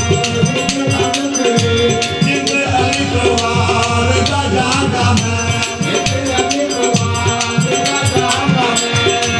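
Qawwali-style ensemble music: men singing to a harmonium and tabla, with many sharp percussive strikes keeping a steady rhythm.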